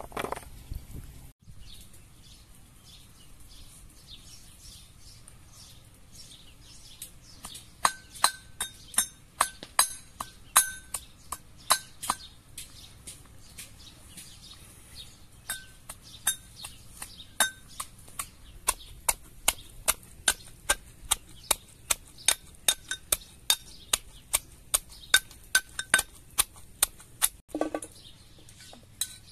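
Knife cutting into firm, unripe green plums: crisp, evenly spaced clicks, about two a second, some with a brief clinking ring.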